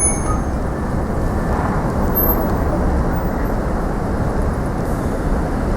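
Steady rumble and rushing noise of a passing electric commuter train. A high wheel squeal dies away right at the start.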